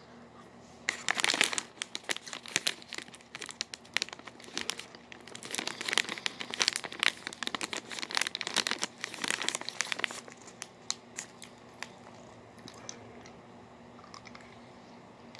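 Halls cough drop packaging crinkling and crackling as it is handled and opened: dense crackling for about ten seconds, then a few scattered crackles before it stops.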